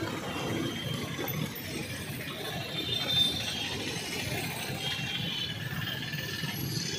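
Street traffic: motorcycles and cars passing, a steady mix of engine and tyre noise.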